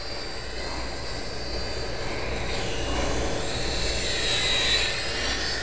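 Micro electric RC airplane's motor and propeller buzzing in flight, its high whine swelling about four to five seconds in and then easing off.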